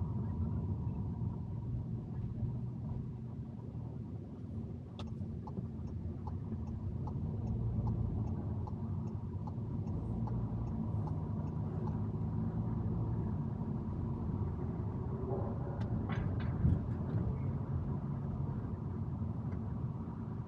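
Car driving slowly through city traffic, heard from inside the cabin: a steady low rumble of engine and tyres. A faint regular ticking of about two a second sounds for several seconds near the middle, and a brief knock comes about three-quarters of the way through.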